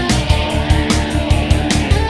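Rock background music with guitar over a fast, steady drum beat.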